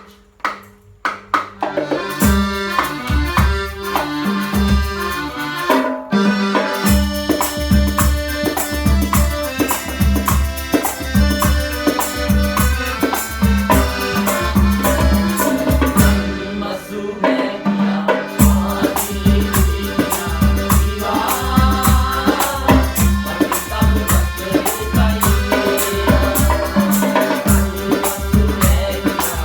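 Instrumental introduction of a calypso-style band song: a melody line over a steady percussion beat and bass. The bass and beat drop out briefly about six seconds in and again for a couple of seconds a little past halfway.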